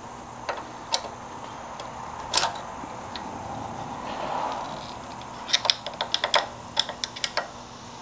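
Small flathead screwdriver clicking against the metal foot peg and its mount as it is wiggled in the pivot-pin hole to line the parts up. A few scattered clicks come first, then a quick run of them about five and a half seconds in.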